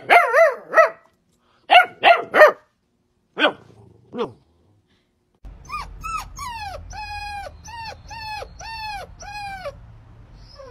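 Puppies barking: a Bernese mountain dog puppy gives short high-pitched barks in small groups. About halfway through, a chocolate Labrador puppy takes over with a run of about ten high yelping calls, each rising and then dropping in pitch.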